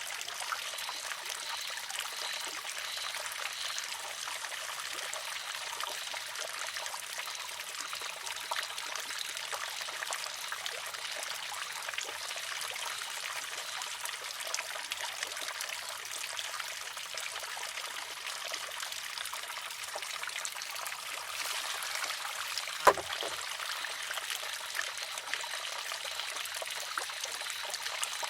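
Water trickling steadily from the spout of a wooden shishi-odoshi (sozu), and once, late on, a single sharp clack as the tipping wooden arm strikes its rock.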